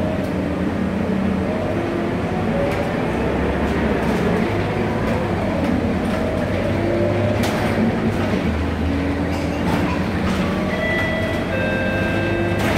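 City bus running while underway, heard from inside the cabin: a steady engine and road rumble, with a drivetrain whine that climbs in pitch several times and drops back as the bus moves through its gears.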